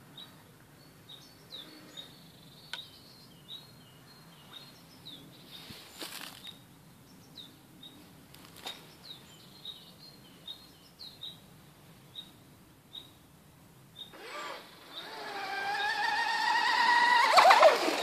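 Small birds chirping for most of the time. In the last few seconds the 4-pole 3030KV brushless motor of a Graupner Taifun RC hydroplane comes in as a rising whine. The whine grows loud as the boat speeds past at full throttle and is loudest just before the end.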